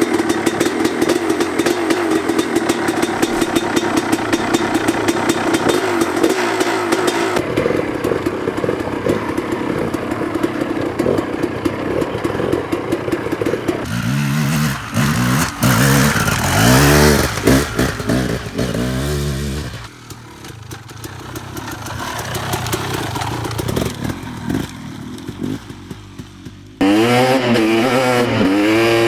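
KTM 300 two-stroke single-cylinder dirt bike engine running: a steady idle at first, then revving up and down in repeated blips, with sudden changes in level and character several times.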